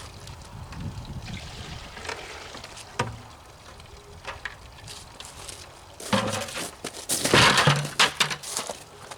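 Footsteps crunching through wet, melting snow. The heaviest run of steps comes in the last three seconds.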